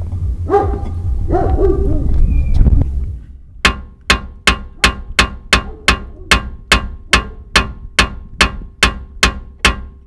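A low rumble for about three seconds, then a hammer striking the steel front suspension of a Mazda 6 in a steady run of sharp blows, about two and a half a second, each ringing briefly, to free a seized part.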